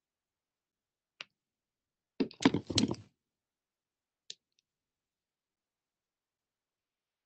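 A few sharp clicks against near silence: one click about a second in, then a quick cluster of clicks and knocks lasting under a second, the loudest part, and one more click about four seconds in.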